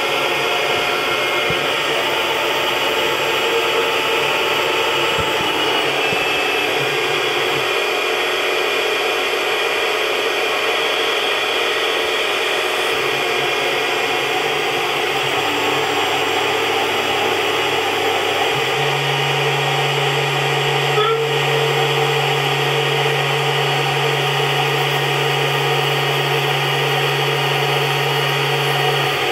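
Tormach PCNC 1100 CNC mill running as a lathe, its spindle turning acetal bar stock. It makes a steady machine whine and hiss, with a low hum that shifts pitch in steps a few times; the largest and strongest shift comes about 19 seconds in.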